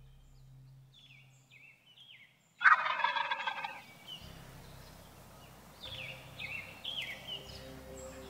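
A wild turkey gobbler gobbles once, loud and sudden, about two and a half seconds in, the call lasting about a second. Small songbirds chirp in short falling notes before and after it.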